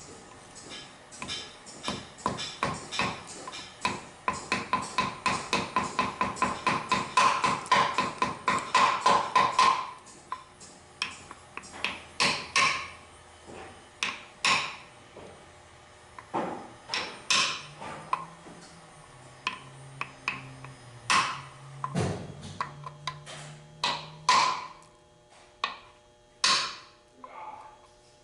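Hammer tapping a socket to drive a new seal into a Ford automatic transmission case: sharp metal-on-metal taps with a ringing tone. They come quickly, about four a second, for roughly the first ten seconds, then turn into slower, spaced strikes.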